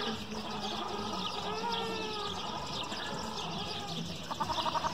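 Small birds chirping and singing in a steady chorus of short high calls. A few gliding animal calls come in the middle, and a rapid pulsing call starts near the end and is the loudest sound.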